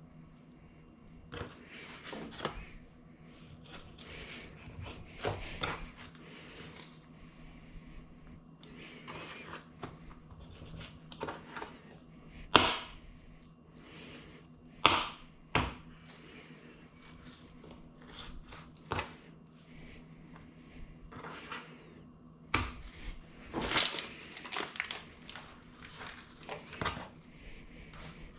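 Irregular knocks and taps of a knife on a wooden cutting board while beef is cut for jerky, over a steady low hum.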